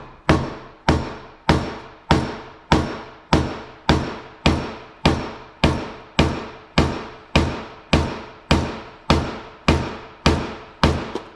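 Steady, evenly paced hammer blows, about twenty of them, one every half second or so, each ringing briefly. They are beating on a stuck shaft that will not drive out of a 1985 Yamaha Tri-Z engine case.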